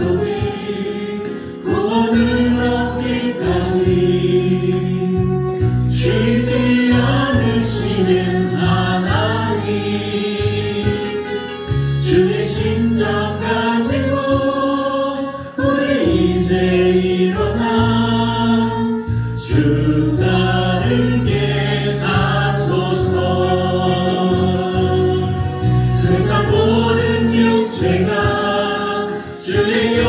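A mixed group of men and women singing a gospel praise song together into microphones, over instrumental accompaniment.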